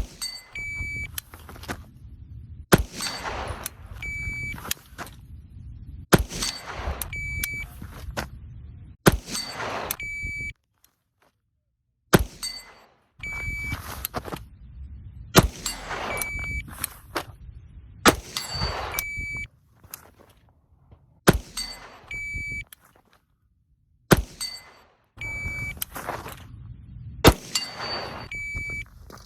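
Repeated cycles of a shot-timer beep followed a second or two later by a single 9mm shot from a B&T APC 9 pistol-caliber carbine, about every three seconds. Rustling and movement noise fills the gaps between.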